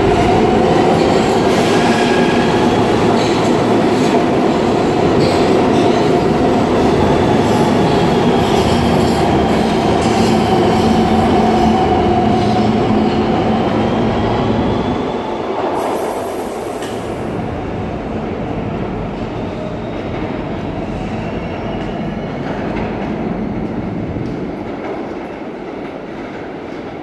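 R160B subway train with Siemens propulsion pulling out of the station: wheel-on-rail rumble and clatter with a whining tone, loud while the cars pass close. It drops off about halfway through and fades as the train runs away into the tunnel.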